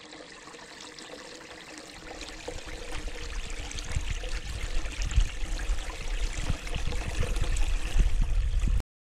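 Spring water pouring from a small collecting trough into a shallow stony pool, a steady splashing rush. It grows louder over the first few seconds, then cuts off suddenly near the end.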